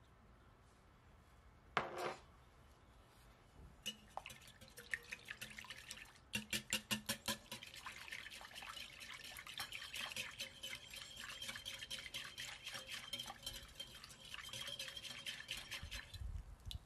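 Wire whisk beating egg, water, yeast and sugar in a glass bowl: fast, even strokes, the liquid sloshing and the wires ticking against the glass, stopping shortly before the end. A single short knock about two seconds in, before the whisking.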